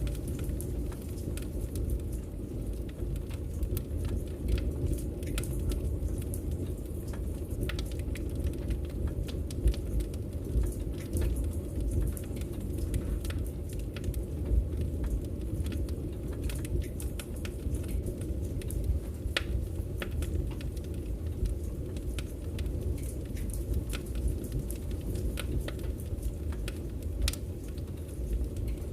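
Wood fire crackling in a fireplace: a steady low rumble of burning with irregular sharp pops and crackles.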